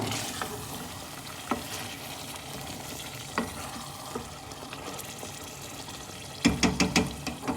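Chicken curry frying in oil in a pan, sizzling steadily while a spoon stirs it, with occasional scrapes and clicks of the spoon against the pan. Near the end comes a quick run of louder knocks.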